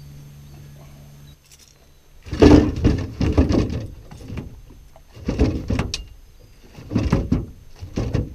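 Repeated loud thumping and rattling against an aluminum boat deck as a striped bass in a landing net is handled and thrashes, in four bouts each up to about a second and a half long. A steady low hum stops about a second in.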